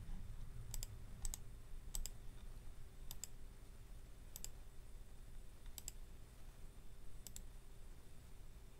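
Computer mouse clicking: about seven sharp press-and-release clicks spaced irregularly a second or so apart, over a faint steady low hum.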